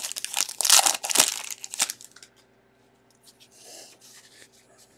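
Foil wrapper of a 2021 Bowman baseball card pack crinkling and tearing open, loud for about two seconds, then much quieter.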